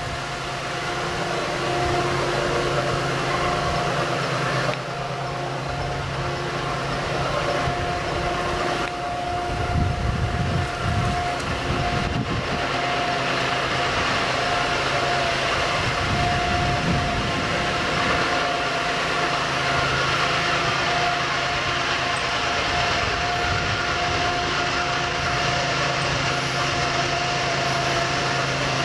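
Diesel-electric freight train approaching slowly, its locomotive engine giving a steady low drone with a steady whine running over it, growing a little louder in the first few seconds.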